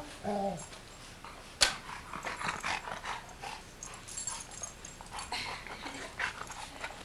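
A short low whine, then a sharp knock and a run of light clicks and clatter from plastic toys being handled on a carpeted floor.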